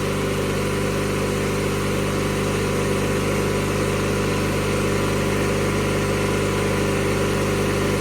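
1997 MTD Yard Machines riding lawnmower engine running steadily at a constant speed, just after a cold start.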